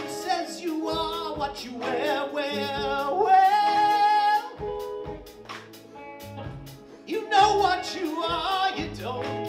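Live progressive rock band playing, with electric guitar, keyboards, bass and drums, and a long held lead note in the middle.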